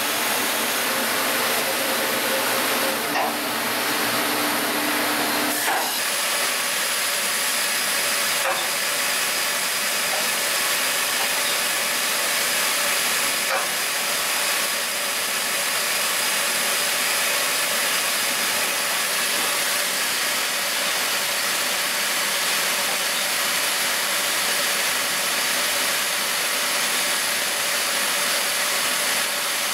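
Aquamaster RI-5400 rotary indexing parts washer running, a steady loud hiss of its wash spray and air blowoff. About six seconds in there is a knock, after which a low hum drops away.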